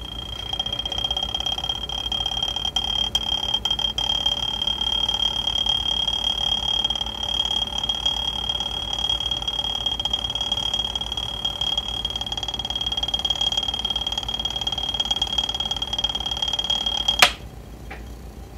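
Homemade magnetic stirrer's small motor running steadily with a high, even whine, then switched off with a sharp click near the end.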